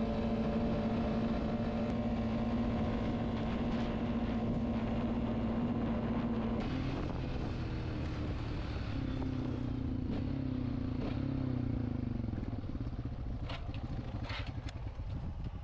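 ATV engine running steadily while riding, its note shifting about six seconds in and dropping away as the machine slows near the end. A few sharp clicks or rattles come near the end.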